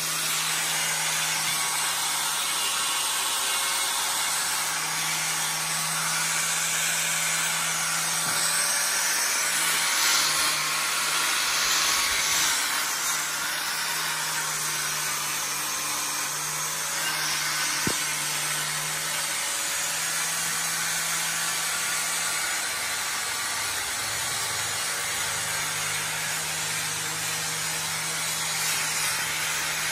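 Small handheld electric power tool sanding a wooden board: a steady motor hum under a continuous abrasive hiss, swelling briefly as it is pressed harder about ten to thirteen seconds in.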